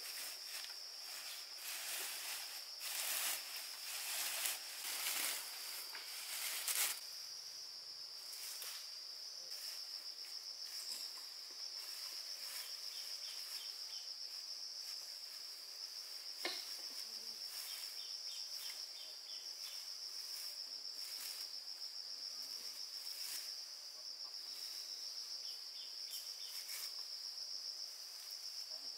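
Insects trilling steadily in one continuous high-pitched buzz. For roughly the first seven seconds, loud rustling and handling noises sit over it, and there is a single sharp click about sixteen seconds in.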